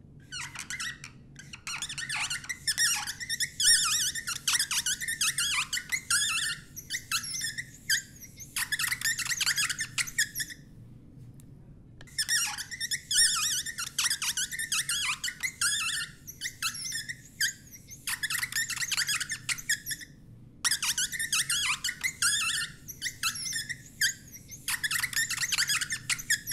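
Paint marker tip squeaking across a 3D-printed plastic sign in quick, short strokes as the raised letters are filled in. The squeaks come in long runs, broken by a couple of brief pauses.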